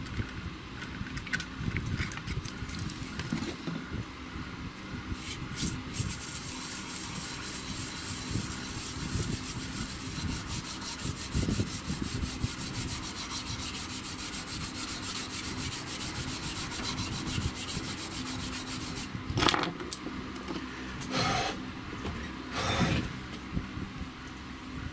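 A small brush scrubbing rapidly back and forth over the solder side of a circuit board wetted with cleaning fluid, cleaning tarnished, suspect solder joints. Near the end come a few louder knocks of handling.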